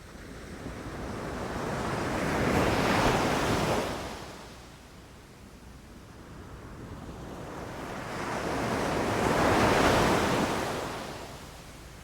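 Ocean waves breaking on the shore: two surges of surf, each building and then fading, about seven seconds apart.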